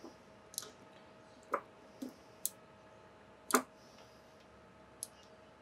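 Light clicks and taps of multimeter test probes being handled and touched against a laptop battery pack's 18650 cells, about six in all, the loudest about three and a half seconds in. A faint steady hum runs underneath.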